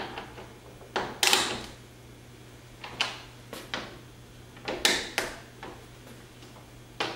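Screws being tightened by hand with a T30 Torx driver into a rear spoiler: a string of short clicks and scrapes about every second or two, over a steady low hum.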